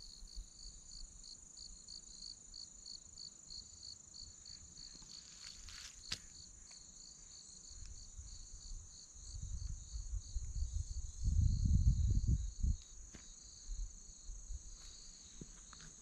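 Insects calling: a steady high buzz with a pulsing chirp at about four pulses a second. A low rumbling noise swells in the middle, loudest about eleven to thirteen seconds in.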